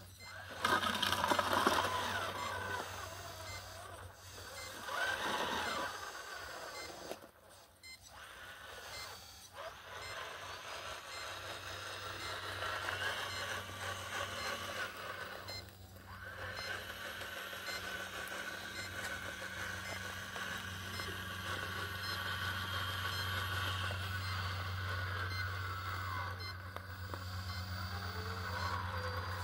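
Radio-controlled scale Caterpillar wheel loader at work: electric drive and hydraulic motors whining, rising and falling in pitch, over a steady low hum, with repeated reversing beeps.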